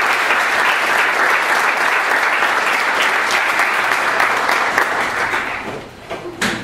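Audience applauding and cheering as a lightning talk ends. The applause dies away about six seconds in, and a single sharp knock follows near the end.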